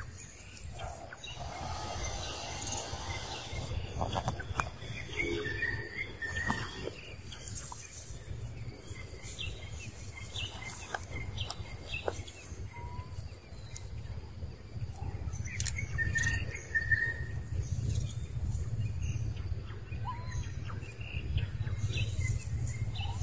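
Outdoor forest ambience: scattered short, high animal chirps and calls over a steady low rumble, with a few light clicks.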